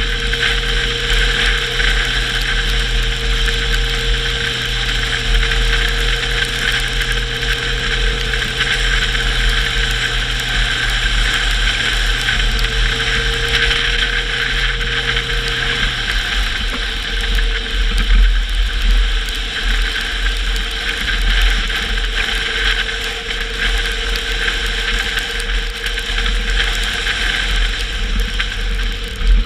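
Car driving at speed, a steady mix of engine and road noise with a constant high whine. A low hum in it cuts out about halfway through.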